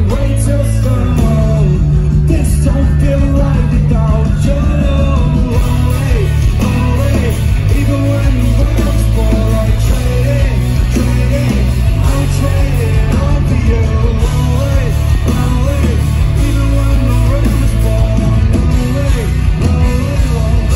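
Live rock band playing a slow song: acoustic and electric guitars, bass and drums with a lead singer, loud and continuous.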